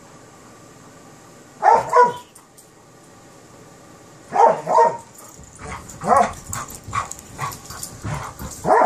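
A Kerry Blue Terrier puppy and an Airedale Terrier barking and yipping as they play-fight. There are two quick double barks about two seconds in and again past four seconds, then a faster run of shorter barks toward the end.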